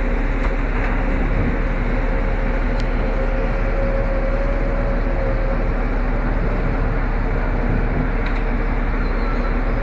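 A ship's machinery running: a steady rumble with a constant hum.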